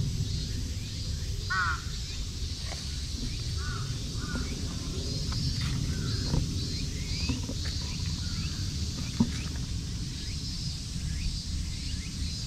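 Outdoor ambience: small birds chirping and twittering, short rising calls scattered throughout, over a steady low rumble.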